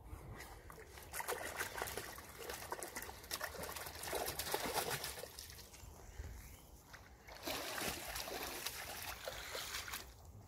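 Water splashing and trickling as a plastic crate of young carp is tipped out into lake shallows, in two spells of crackly splashing with a short lull between.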